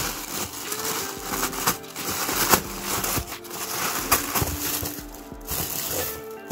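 Tissue paper crinkling and rustling as hands pull it back inside a cardboard box, in a dense run of crackles and sharp crinkles, over soft background music.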